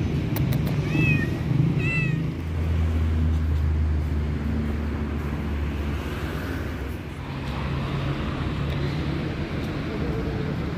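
A tabby street cat meowing twice, two short high calls that rise and fall, about a second apart. Under it is a steady low rumble of city traffic.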